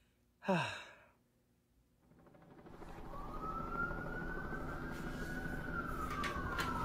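Police siren wailing: it rises in about three seconds in, holds high, then slowly falls, over a low rumbling noise that builds from about two seconds in.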